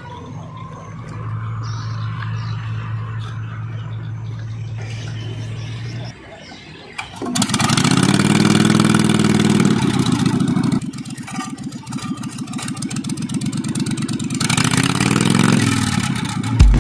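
A steady low engine hum, then about seven seconds in a small longtail ('ces') boat engine starts loudly, revs up and settles, and revs up again near the end.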